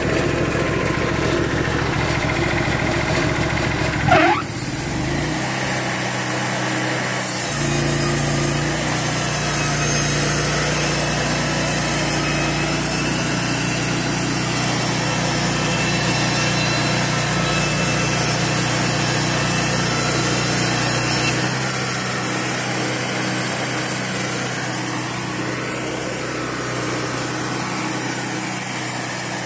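Portable band sawmill's engine revving up about four seconds in, then running steadily under load as the band blade saws a 5/8-inch board off a cedar cant.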